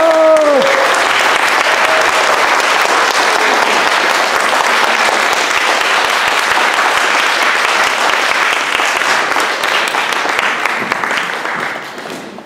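Audience applauding steadily, then thinning out near the end. The ensemble's final sliding note dies away in the first half-second.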